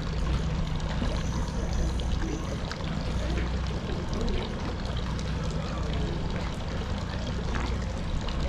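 Water lapping and splashing against the hull of a fishing boat, over a steady low rumble.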